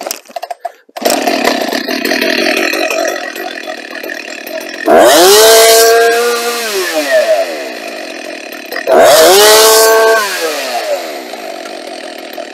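Husqvarna 254 XP two-stroke chainsaw, about 54 cc, starting about a second in, warm from cutting, and idling. It is revved to full throttle twice, each time for about a second, before falling back to idle.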